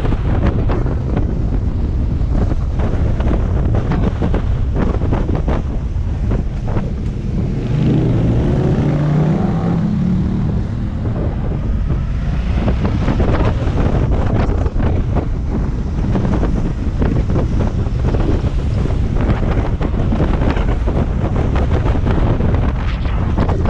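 Motorcycle riding up a mountain road, heard through heavy wind rush on a helmet-mounted microphone, with the engine note underneath. About eight seconds in, the engine note rises in pitch for a couple of seconds as the bike accelerates.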